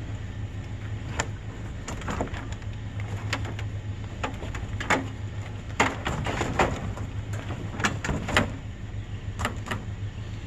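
A vehicle engine running steadily, with irregular clicks and clunks over it, the sharpest clustered in the middle.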